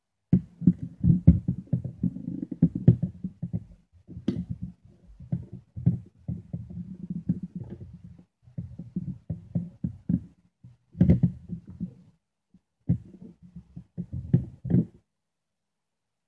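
Close handling noise of a plastic multimeter case and its battery-clip wires being worked by hand on a wooden desk: a busy run of dull knocks, rubs and a few sharper clicks, with short pauses, stopping near the end.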